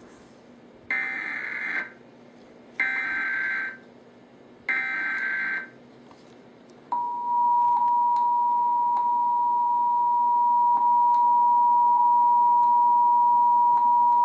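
Emergency Alert System required monthly test: three bursts of SAME header data tones, each about a second long, then, about seven seconds in, the steady two-tone attention signal (853 and 960 Hz) begins and holds.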